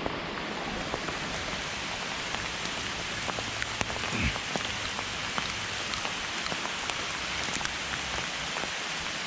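Heavy rain pouring steadily, a dense hiss with scattered sharp ticks of individual drops striking close to the microphone.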